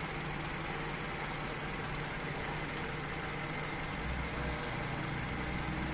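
Carbureted car engine idling while its idle-speed screw is turned up from a too-low, shaky idle of about 600 RPM. The low hum grows fuller about four seconds in.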